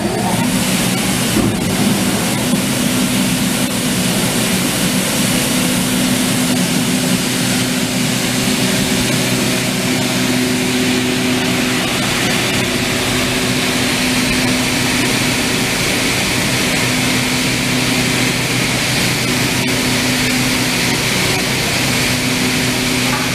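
BSC-20 cylinder shot blaster running: its blast-wheel impeller motors hum steadily under a constant rushing hiss. The amp monitor reads about 18 amps, within the 18–21 amp range the panel gives for the right shot load.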